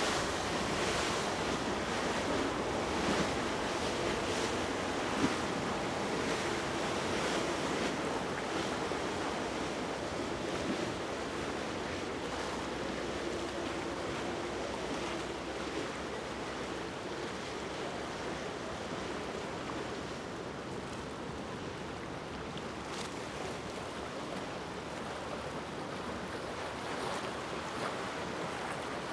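Steady wind buffeting the microphone over choppy sea water, with a faint engine drone from the passing yacht that fades after about fifteen seconds.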